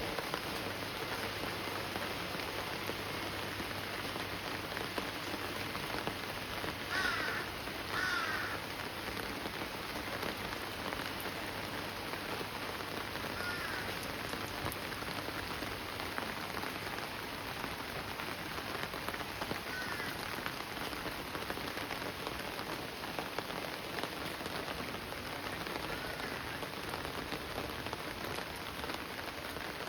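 Steady monsoon rain falling on surfaces. A bird calls twice about seven seconds in, and fainter calls come a few more times later.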